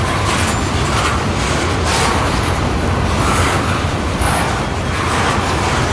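Tank cars of a freight train rolling past close by: a steady rumble of steel wheels on rail, with recurring brief rises of higher hiss and screech from the wheels.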